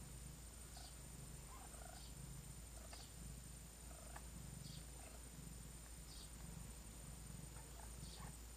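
Faint, rhythmic purring of a domestic cat in labour, swelling and fading with each breath, with faint short chirps in the background.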